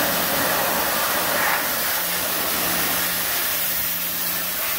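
Powerhorse 1800 PSI electric pressure washer running: a steady motor-and-pump hum under the loud hiss of the water jet spraying grime out of a truck's wheel well.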